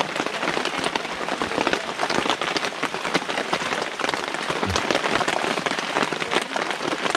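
Steady rain falling, with many small drop impacts ticking on a surface.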